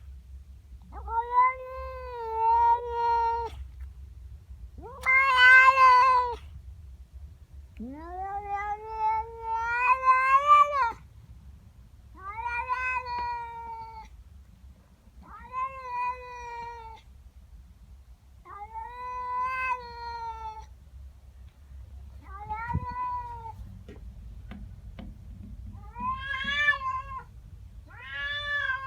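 Domestic cat yowling: a run of about nine long, drawn-out wailing calls, each one to three seconds with short pauses between, one of them rising in pitch. It is a cat's territorial warning at an intruding neighbour cat.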